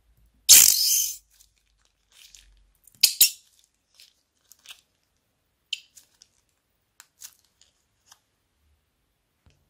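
Thick slime squeezed out of a plastic bag's cut corner: a loud burst of squirting about half a second in and two short squirts around three seconds in, then scattered faint crinkles and clicks as the empty plastic bag is handled.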